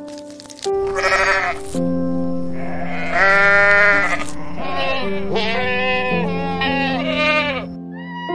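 Goats bleating: about five quavering calls one after another, the longest and loudest about three seconds in, over soft piano music.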